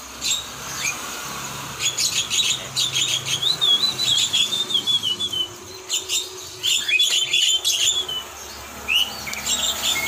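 Caged brown-chested jungle flycatcher (SRDC) twittering ('ngeriwek'): quick runs of high chirps and short warbling phrases, with one longer warble falling in pitch about four seconds in and a few rising slurred calls near the end. This soft twittering is the sign of a bird coming into song while on full pellet feed.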